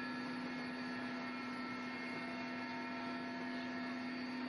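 Helicopter cabin noise: a steady drone with several steady whining tones and no change in level.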